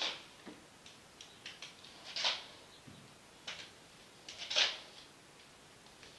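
Slow steps on aluminium forearm crutches across a laminate floor, walking on an injured knee: a scuff of crutch tips and sandal about every two seconds, with small clicks and taps between.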